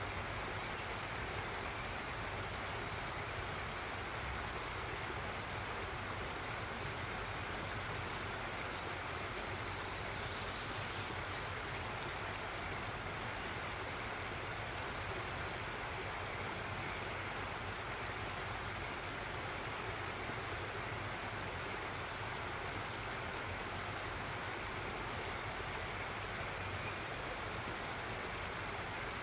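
Steady rushing of a stream flowing over rocks, with a few faint, high bird chirps now and then.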